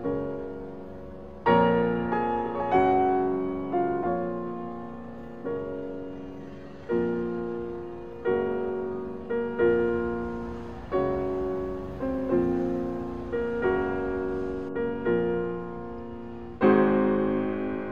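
Slow piano music: chords struck roughly every second and a half, each left to ring and fade.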